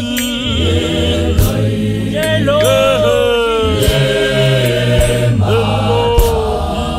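Gospel choir singing: a lead voice gliding over choir harmonies, with a steady low bass underneath and a few sharp beats.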